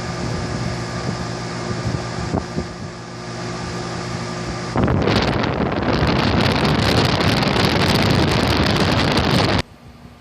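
Air conditioner running with a steady hum carrying several held tones; about five seconds in, a loud rush of blowing air on the microphone takes over, then cuts off abruptly near the end.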